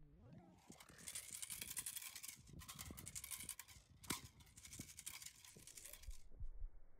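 Crackly rustling and tearing noise as a German Shepherd puppy grips, yanks and shakes a cloth tug rag, stopping suddenly about six seconds in.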